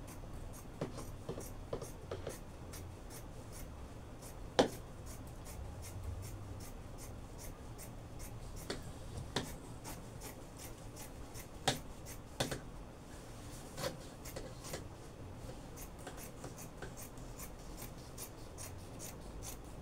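Dressmaking scissors cutting through adire fabric: a run of irregular snips, a few of them louder and sharper than the rest.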